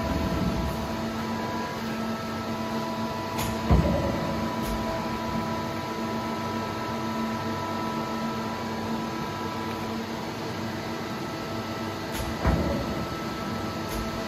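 Hyundai-Kia SKT400M CNC lathe standing powered up, a steady machine hum with several fixed tones, broken by two heavy clunks, one about four seconds in and another near twelve and a half seconds.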